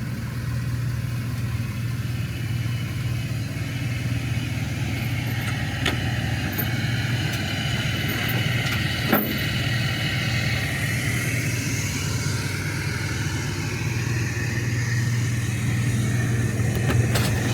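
An engine running steadily with a low, even hum, and a few sharp clicks or knocks about six and nine seconds in and again near the end.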